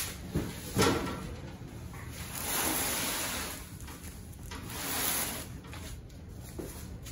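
A long cardboard shipping box knocks down onto a wooden workbench twice in the first second, then scrapes across the bench top in two long slides.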